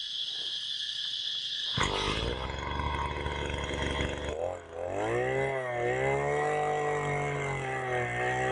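Oshima 2P earth auger's 49.9 cc single-cylinder two-stroke engine running. Its speed rises sharply about two seconds in. From about halfway its pitch wavers and sags as the auger bit bores into the ground under load.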